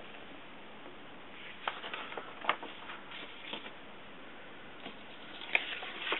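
Paper pages being handled and lifted away: a few light rustles and clicks, then a sharper tap near the end, over a steady hiss.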